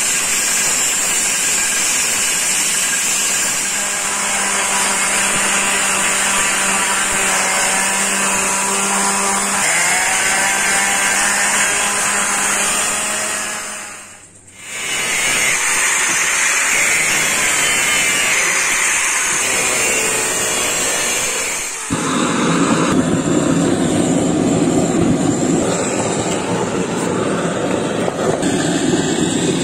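Belt grinder driven by an angle-grinder motor running, sanding a wooden axe handle, its whine dipping in pitch as the wood is pressed to the belt. It drops out briefly halfway, and about 22 s in a louder, rougher rushing noise takes over.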